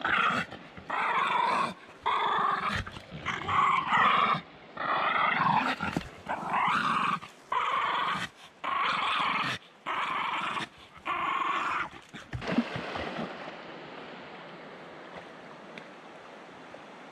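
Dog giving a string of about nine high, drawn-out cries, each about a second long, that stop about twelve seconds in. A steady rushing noise of the river is left after them.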